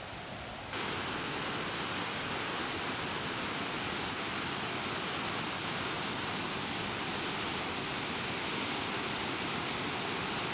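Waterfall pouring through a narrow rock gorge: a steady rush of falling white water. It jumps louder less than a second in, then holds even.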